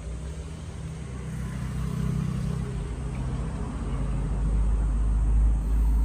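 A car on the road passing by, its engine rumble growing louder toward the end.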